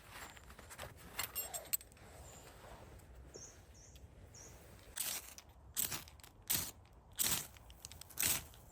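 Footsteps crunching in snow: a few faint clicks and rustles first, then a run of short crunching steps at a walking pace from about halfway through.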